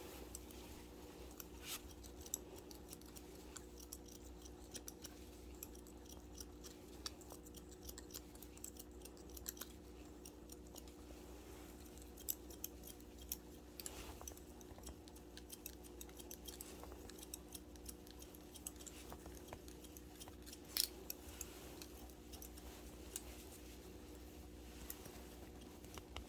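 Barber's long shears snipping hair in quick, irregular clicks over a faint steady hum.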